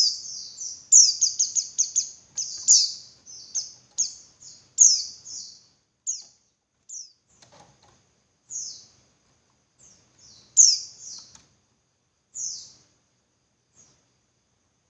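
Female white-eye (pleci) calling: rapid high, thin chirps, packed closely for the first five or six seconds, then thinning to single chirps every second or two. This is the female's call to males, used as a lure to set male white-eyes singing.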